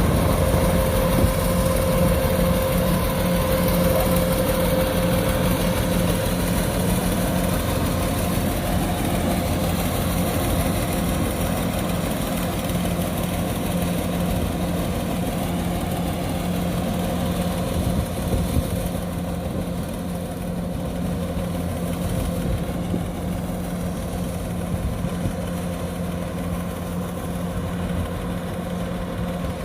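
Kubota DC-105X combine harvester's diesel engine and threshing machinery running steadily. A fainter high whine heard over the hum in the first few seconds fades out, and the whole sound grows slightly quieter toward the end.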